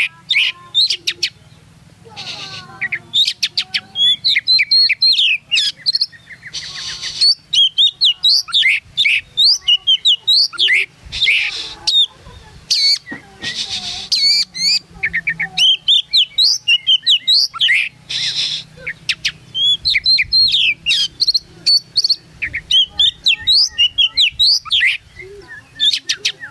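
Oriental magpie-robin singing a loud, fast, varied song of whistles and chirps in rapid phrases with short breaks, with a few harsh rasping notes among them.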